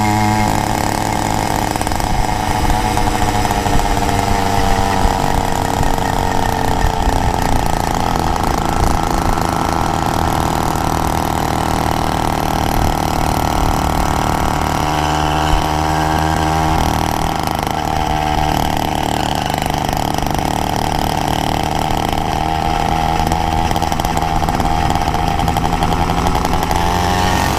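Small single-cylinder engine of a motorized bike running at cruising speed close to the helmet microphone. It holds a steady pitch, drops briefly as the throttle eases about halfway through, then comes back up.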